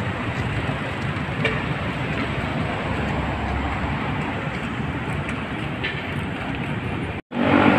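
Steady traffic noise from a busy multi-lane highway: cars, vans and motorcycles passing in a continuous rumble and hiss. The sound drops out for an instant near the end.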